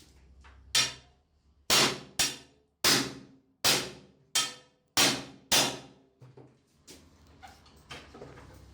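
A run of about eight sharp hammer blows on metal, roughly one every half to three-quarters of a second, each ringing briefly. A few light taps follow near the end.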